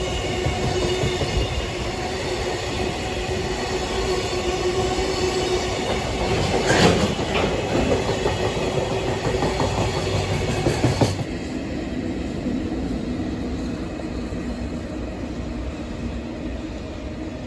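Freight train of Koki container flatcars passing close by: wheels rumbling and clacking over rail joints, with a steady high wheel squeal and a louder clatter about halfway through. About two-thirds in, the sound cuts to a quieter, more distant rumble of a tank-car freight train rolling past.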